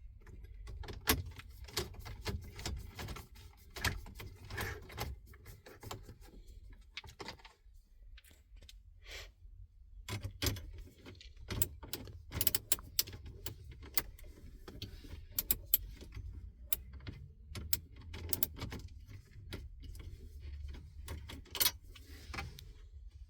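Irregular metallic clinks and rattles from the head unit's metal mounting cage and wiring being handled and fitted back into the dashboard.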